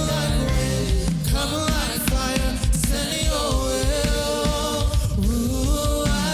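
Gospel worship music: a voice singing over a full band with a steady beat.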